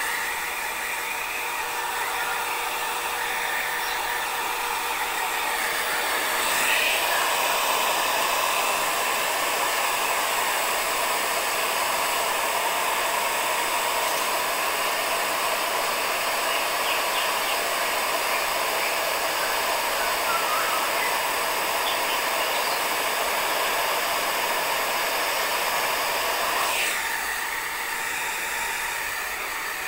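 Handheld hair dryer blowing steadily while drying a wet cat's fur. It gets louder about seven seconds in and drops back a few seconds before the end.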